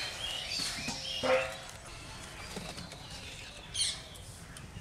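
Birds chirping, with one short, loud animal call a little over a second in and another high chirp near the end.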